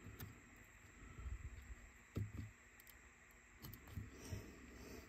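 A few faint, scattered clicks and light taps from small plastic parts and tools being handled while a cassette Walkman is taken apart.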